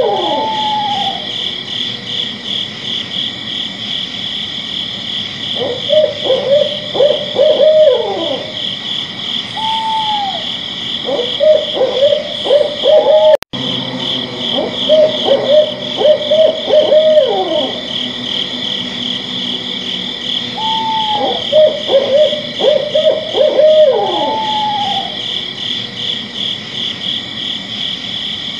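Owl hooting in short, quick runs of hoots, with a few rising-and-falling calls between the runs, over a steady high-pitched pulsing chorus of night insects. The sound drops out for an instant about halfway through.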